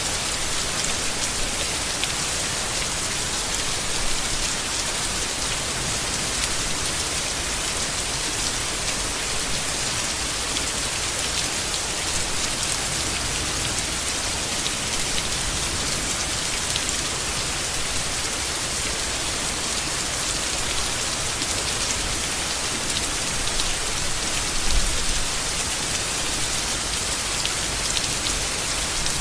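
Steady heavy rain falling on leaves, with a dense patter of individual drops. There is one brief, heavier low thump near the end.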